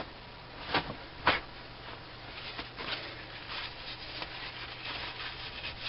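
Two short squirts of aerosol brake cleaner about a second apart, then a run of soft, uneven rubbing strokes as oil and debris are scrubbed out of an old lathe tool post part.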